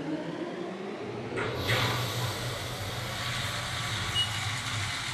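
A low steady rumble, with a hiss that swells in about a second and a half in.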